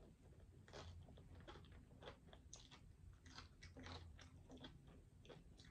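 A person chewing a mouthful of pepperoni and bacon pizza: an irregular run of short, wet mouth clicks and small crunches.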